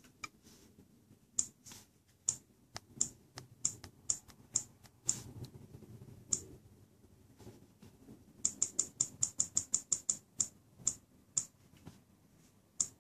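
Smartphone touch-feedback clicks as the arrows of a date picker are tapped: single sharp ticks at irregular intervals, then a fast run of about fifteen clicks between eight and ten seconds in, as the day is stepped up one tap at a time. A soft handling rumble comes about five seconds in.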